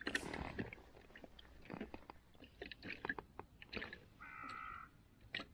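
Scattered light crunching and clicking from handling at the ice hole: hands, clothing and bits of ice and snow. About four seconds in, a crow caws once, a single drawn-out call.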